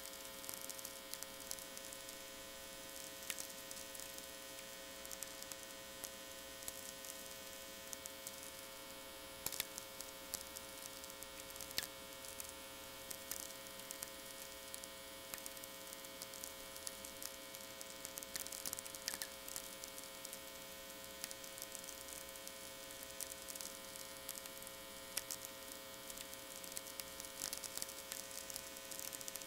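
VLF natural radio received on a modified Technics SA-350: sferics from lightning hundreds of miles away, heard as irregular crackles and pops with a few louder ones scattered through. Under them runs a steady mains hum from power-line interference.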